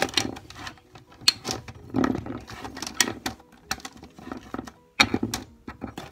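Small plastic Minecraft eraser figures and their plastic chest case clicking and knocking as they are handled, with irregular taps and clatters.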